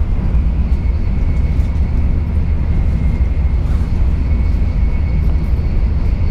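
Steady low rumble of a Japanese shinkansen bullet train heard from inside the passenger cabin while cruising at about 250 km/h, with a faint steady high whine above it.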